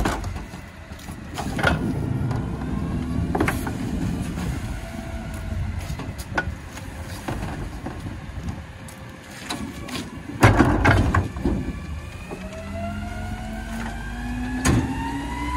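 Rear-loading garbage truck's engine running, with knocks and clatters as a wheeled cart is handled at the cart tipper and loud bangs about ten seconds in as the tipper lifts and upends it. Near the end the engine revs up in a rising whine as it drives the hydraulics.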